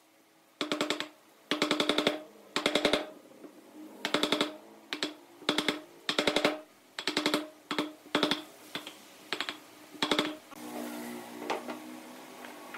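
A power tool run in short bursts of rapid clicking with a buzzing tone, each under a second and about a dozen in all. A steadier, lower hum takes over in the last two seconds.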